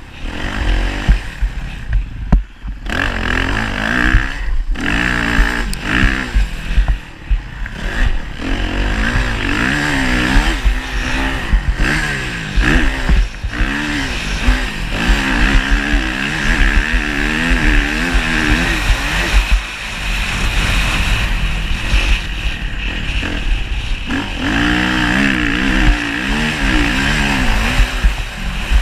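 Motocross motorcycle engines revving up and down over and over, the pitch wavering as the throttle opens and closes. There are a few short drops near the start where the revs fall away.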